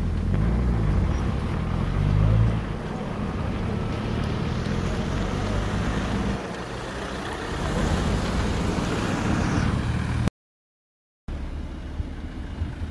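Road vehicle engines running with tyre and road noise; the noise swells in the second half, then the sound cuts out abruptly for about a second near the end.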